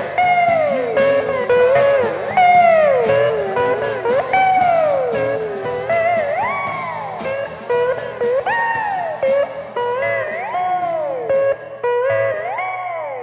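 Electric slide guitar over a rock band backing track, playing phrases that swoop down in pitch about every two seconds, with even ticks from the drums.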